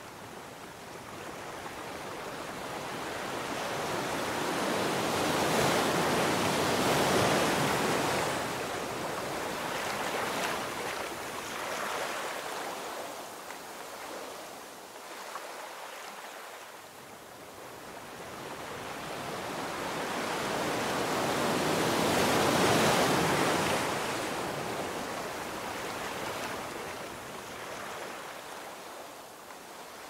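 Sea waves washing up a beach, a steady rushing wash that slowly swells and ebbs, building to two big surges, about seven seconds in and again about twenty-two seconds in, with smaller swells between.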